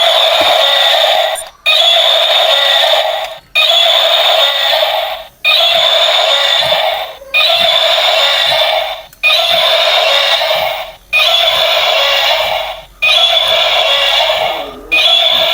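A loud electronic buzz repeating in bursts of about two seconds, each cut by a short gap.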